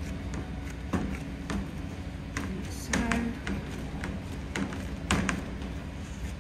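Gloved hands pressing and patting chocolate crunch mixture flat in a shallow metal baking tray, with irregular taps and knocks of the tray against a stainless steel counter, the loudest about three and five seconds in. A steady low hum runs underneath.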